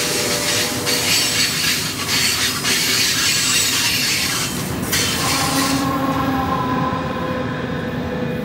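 Brightline passenger train, led by a Siemens Charger diesel-electric locomotive, passing close at speed: a loud rush of wheels on rail. About five seconds in the sound turns duller, with steady tones running through it.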